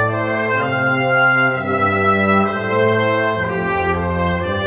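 Slow brass music: sustained chords that change about once a second.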